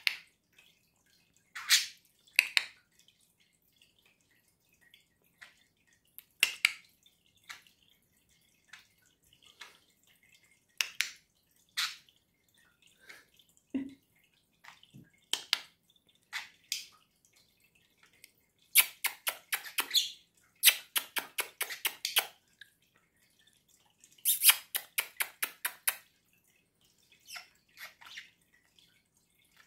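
Drip-like mouth clicks and pops traded back and forth: a budgerigar imitating a person's tongue clicks. Twice there is a fast run of clicks, about seven a second.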